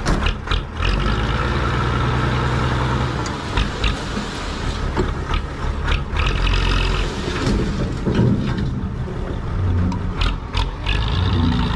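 Six-wheel dump truck's engine running steadily while its raised bed dumps a load of soil, with scattered clicks and knocks through it.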